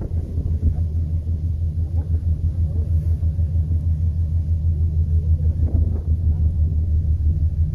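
Steady, loud low engine rumble heard from on board a moving vehicle, with faint voices in the background.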